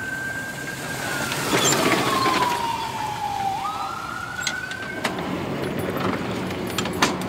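Electric EZGO TXT 48-volt golf cart's motor and drivetrain whining as it drives: one high tone that slides down over about two seconds, jumps back up almost at once, holds, then fades. A rushing noise rises with the first part of the tone, and two sharp clicks come near the end.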